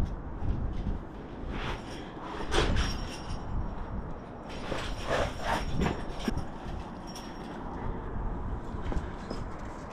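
Wind buffeting the microphone, with a few bursts of rustling and scraping from a climber moving on rock, and faint high clinks of metal climbing gear.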